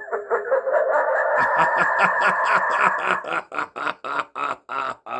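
Lightsaber hilt's soundboard playing a sound-font clip through its small speaker. It cuts in suddenly with a harsh, steady buzz for about three seconds, overlaid and then followed by a rapid pulsing about five times a second.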